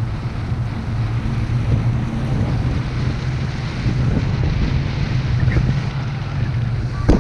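Loud, steady wind noise from the airflow of a tandem paraglider in flight, rushing and rumbling over the pole-mounted camera's microphone.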